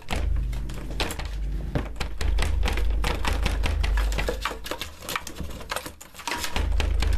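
Handling noise on a handheld camera's microphone: fast, irregular clicks and rubbing over an uneven low rumble as the camera is moved about.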